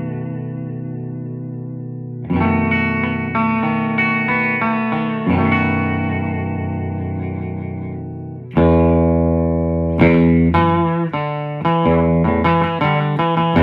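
Fender Custom Shop 1958 Jazzmaster electric guitar, bridge pickup, played loud through a Supro Thunderbolt MkII amp set to 35 W. Chords are struck and left to ring and fade for a few seconds each. From about two-thirds of the way through, a louder passage of quicker picked chords and notes follows.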